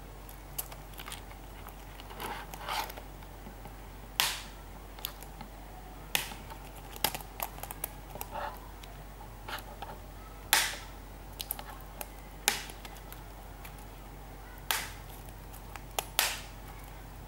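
Plastic casing of an Asus Eee PC Seashell keyboard being forced apart: a string of sharp plastic clicks and snaps at irregular intervals, several of them loud, as the clips and melted retaining posts give way.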